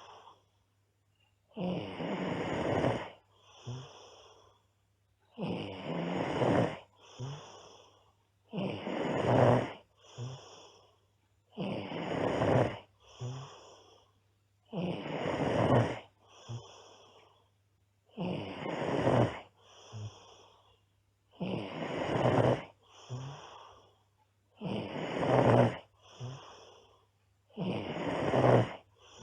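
A girl snoring loudly in a steady rhythm: a snore about a second long roughly every three seconds, each followed by a shorter, softer breath.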